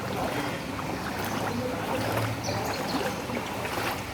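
Traffic on a rain-waterlogged city street: vehicle engines running with a low hum and tyres swishing through standing water.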